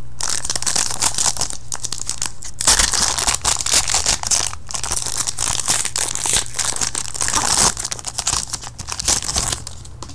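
Foil wrapper of a 2013 Panini Prestige football card pack being torn open and crinkled by hand, a dense crackling that fades out near the end.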